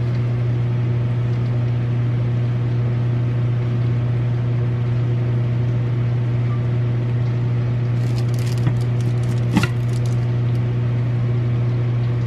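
A steady low hum, with a few light clicks and a small clink about eight to ten seconds in.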